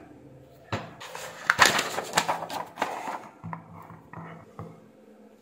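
A sheet of paper crackling and rustling as it is picked up and handled, with several sharp clicks among the rustle. A faint low hum follows about halfway through.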